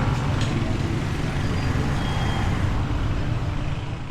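Road traffic noise: motor vehicle engines running with a steady low rumble.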